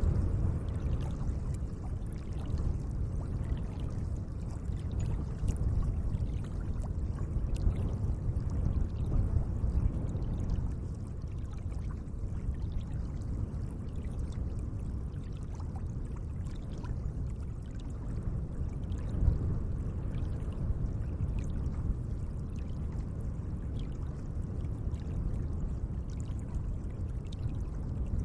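Gentle lake water lapping and trickling: a steady low wash of water with small splashes throughout.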